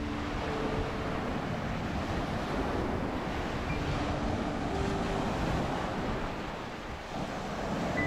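Ocean surf washing onto a beach, a steady wash that eases off near the end and swells again, with wind buffeting the microphone.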